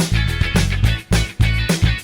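Background music: an upbeat funk-rock track with guitar and a steady, punchy beat.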